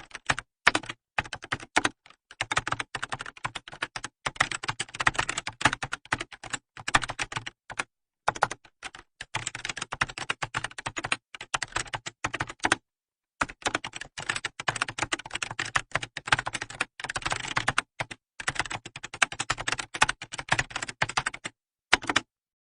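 Fast typing on a computer keyboard: rapid runs of key clicks with short pauses between bursts, stopping a little before the end.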